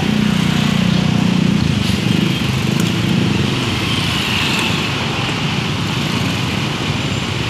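City bus driving slowly through flood water: its engine rumbles, easing after about two seconds, over a steady wash of water pushed by the tyres.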